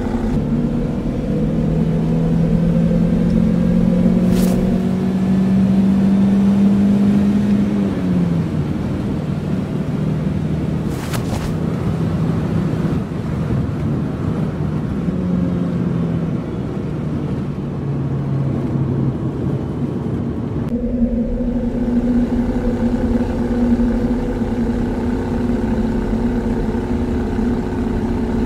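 Steady engine drone of a sci-fi truck that rides on glowing energy wheels. Its pitch climbs slowly for several seconds, then dips about eight seconds in, and the tone shifts abruptly about twenty seconds in. Two short sharp sounds cut through, at about four and eleven seconds in.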